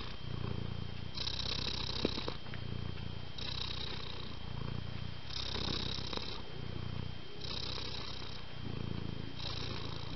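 Domestic cat purring, the purr swelling and easing in a slow cycle of breaths about every two seconds.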